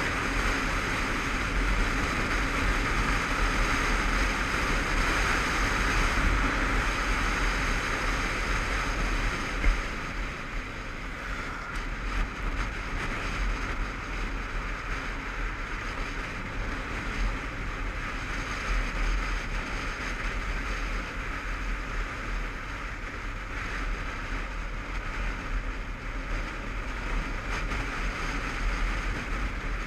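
Wind rushing over a helmet-mounted camera on a moving motorcycle, with engine and road rumble underneath. A single sharp knock sounds about ten seconds in, after which the rush settles a little quieter.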